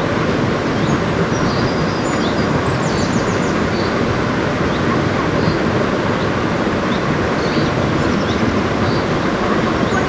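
Steady rushing of a rain-swollen jungle stream, a dense even noise, with faint high bird chirps above it.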